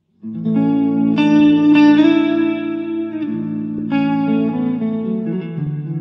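Background music that starts a moment in, with sustained pitched notes changing every second or so.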